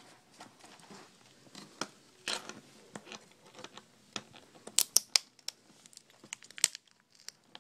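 Fingers handling a laptop LCD panel and the adhesive tape over its ribbon cable connector: scattered small crinkles and clicks, with a few sharper ticks about five seconds in.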